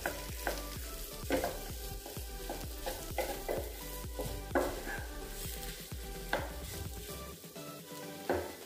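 A wooden spatula stirring and mashing boiled potato into a spiced onion-tomato masala in a non-stick kadai, with irregular scrapes and knocks against the pan over a light sizzle.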